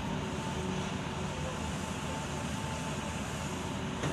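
Hitachi hydraulic excavator's diesel engine running steadily while the arm and bucket are worked.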